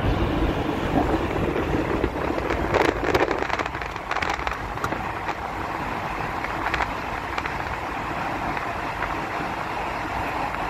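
Steady road and wind noise of a car driving at speed, heard from inside the cabin, with a few sharp clicks and knocks between about two and five seconds in.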